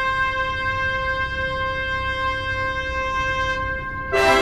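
Background music: long held brass-like notes, moving to a louder, fuller chord near the end.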